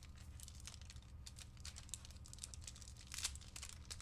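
Crinkling and rustling of hockey trading card pack wrappers and cards being handled: a string of small crackles, with one louder crackle about three seconds in.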